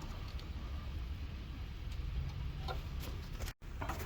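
A steady low hum with a few faint clicks and taps. The sound drops out completely for a moment about three and a half seconds in.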